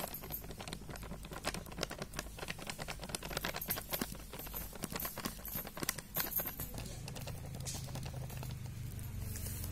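Ragi flour being poured from a plastic packet into a small steel sieve: a faint, quick, irregular patter of light ticks and packet crinkle.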